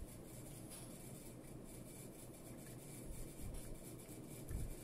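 Faint rubbing and handling of a shielded cable as fingers work its end into a connector clamped in a vise, over low room noise, with a soft low thump near the end.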